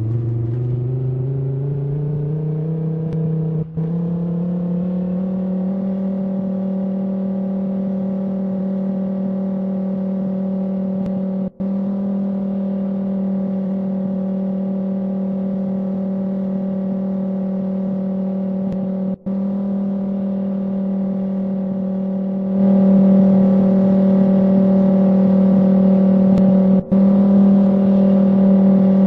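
Outdoor tornado warning siren winding up, its pitch rising over the first several seconds, then holding a steady tone. It grows louder about two-thirds of the way through and cuts out for an instant four times.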